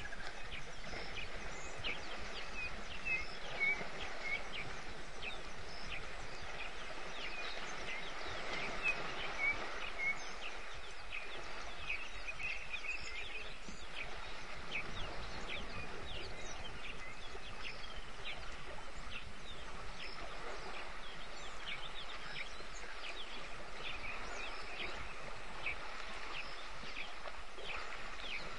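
Bush ambience: many short, high bird chirps and calls, more frequent in the first ten seconds or so, over a steady background hiss.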